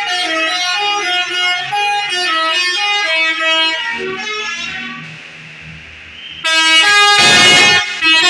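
Bus telolet basuri melody horn playing a quick tune of short stepped notes that fades out about five seconds in. About a second later a loud, harsher horn blast with a hiss sounds, breaking off briefly near the end.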